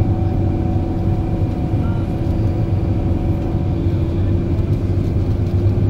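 Scania K400EB coach driving along, its engine and tyre noise heard from inside the passenger cabin as a steady low drone.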